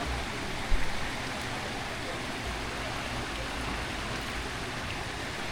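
Steady rushing noise, with a brief low thump just under a second in.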